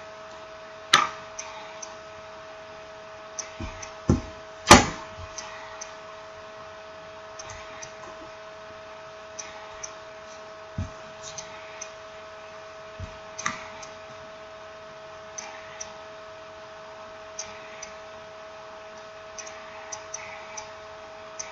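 Scattered small clicks and taps of tools and smartphone parts being handled during reassembly, with a few sharper knocks, the loudest about a second in and near five seconds in. A steady electrical hum runs underneath.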